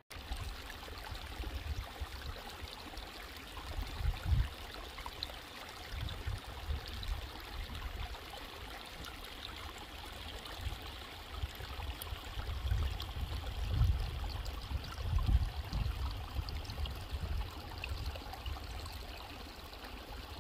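Steady rush of running water, with irregular gusts of wind buffeting the microphone that are strongest about four seconds in and again past the middle.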